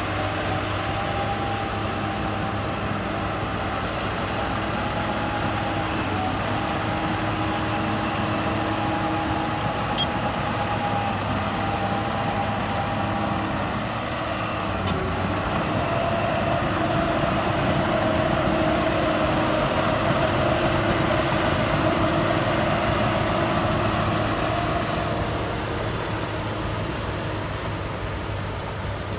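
Heavy diesel earthmoving machine running steadily, its engine a little louder in the middle stretch. A high thin whine comes and goes over it.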